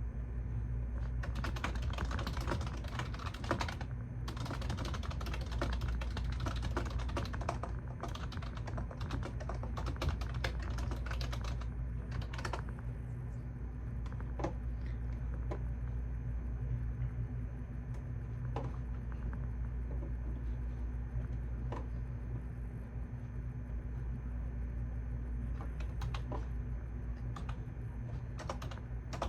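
Typing on a computer keyboard: a fast, dense run of keystrokes for the first twelve seconds or so, with a brief pause near four seconds, then only scattered single key presses. A steady low hum runs underneath.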